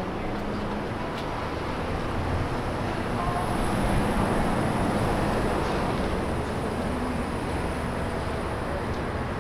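Steady road-vehicle noise that swells for a few seconds about a third of the way in, then settles back.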